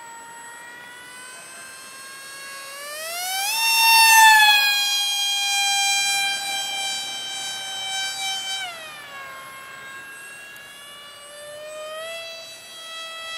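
Electric motor and propeller of a cardboard RC F-22 model plane whining in flight. The whine rises in pitch about three seconds in as the throttle opens and is loudest around four seconds. It drops in pitch near nine seconds and picks up again slightly near the end.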